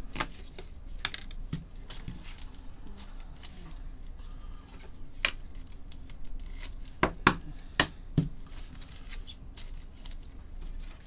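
Gloved hands handling trading cards and clear plastic card holders: scattered sharp clicks, taps and rustles of card stock and plastic, the loudest a few taps about seven to eight seconds in.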